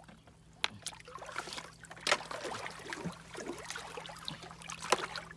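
A hand splashing and sloshing in shallow, muddy stream water while groping among rocks for snails, with a few sharp knocks, the loudest about two seconds in and again near the end.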